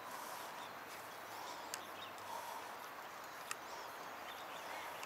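Quiet outdoor ambience: faint distant birds chirping over a steady low hiss, with a couple of light clicks, the sharpest about three and a half seconds in.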